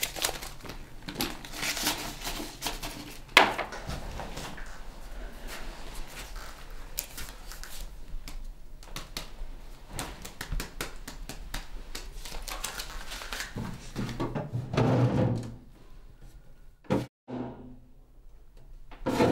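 Paper banknotes rustling and clicking as they are handled, with a sharp click a few seconds in. Near the end comes handling of a desk drawer, with a heavier knock about fifteen seconds in.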